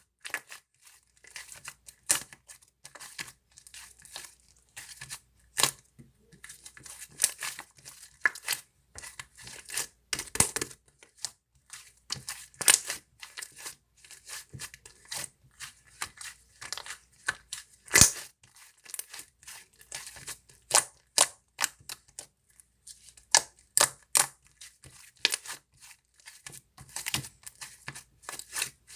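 Cream slime being squeezed and kneaded by hand, giving irregular sharp clicks and pops as air bubbles in it burst.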